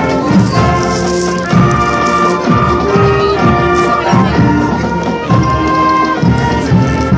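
Middle school marching band playing: brass holding pitched notes over a steady beat of drums.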